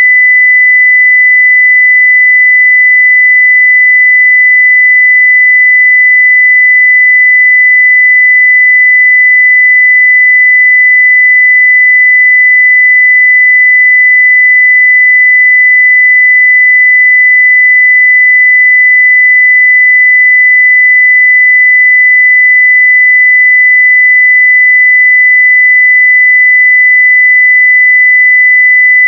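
Continuous steady 2 kHz sine-wave test tone at full level, a single pure pitch that does not change.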